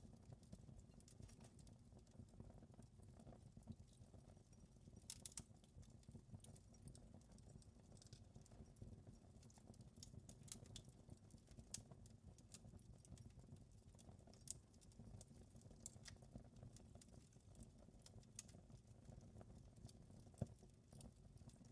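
Faint wood fire crackling: irregular snaps and pops over a low, steady rumble, with one sharper pop near the end.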